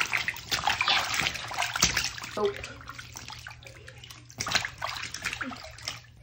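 Water splashing and sloshing in a bowl as plush toys are stirred and dunked by hand, busiest in the first couple of seconds, with another short burst of splashing about four and a half seconds in.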